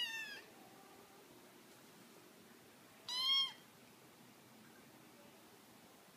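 Kitten meowing to be fed: the tail of one high-pitched meow at the very start, then one short high meow about three seconds in.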